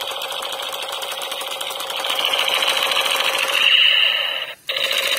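Battery-powered electric toy assault rifle sounding its firing effect: a rapid, steady machine-gun rattle with a shrill electronic tone over it. The sound changes about two seconds in, cuts out for a moment near the end, and starts again.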